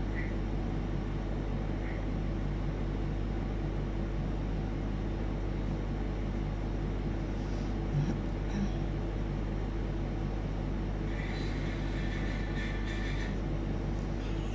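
Steady low mechanical hum with a faint steady tone above it, and a single soft thump about eight seconds in.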